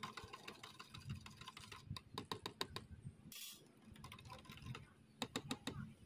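Quick, light clicks and taps in irregular runs, with a short hiss about three and a half seconds in.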